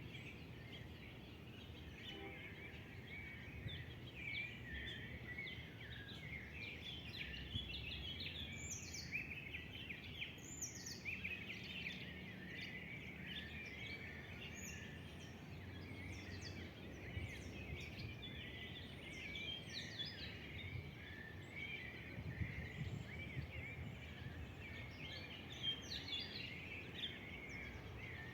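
A chorus of many birds singing and chirping together, dense overlapping high chirps and trills, with a few sharper whistled notes now and then, over a faint low background hum.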